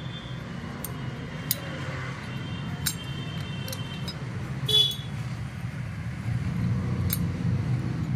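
Light metallic clicks of motorcycle clutch plates being handled and fitted into the clutch assembly, half a dozen scattered taps, over a steady low hum. About halfway through comes a brief high toot, the loudest moment.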